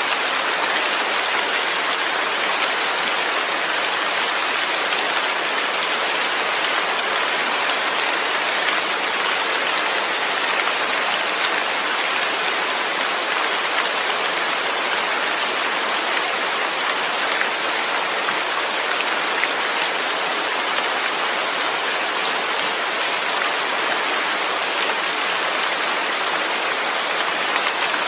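Steady rainfall, an even hiss of many drops that holds unchanged throughout.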